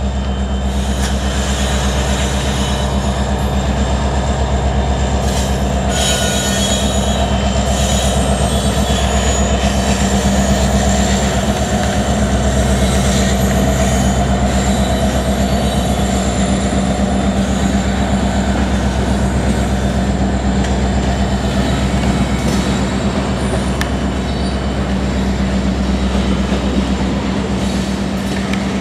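Freight train cars rolling past: wheels clicking over rail joints and squealing against the rails, with a steady low diesel drone underneath. A brief high wheel squeal stands out about six seconds in.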